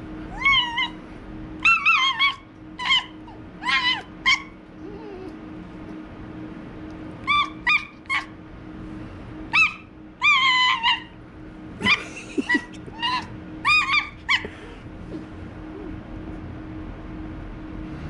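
A pet fox making short, high-pitched squeaky calls in quick runs while it play-bites and paws at a hand, pitch bending up and down in each call; the runs come in bursts with pauses of a few seconds between them.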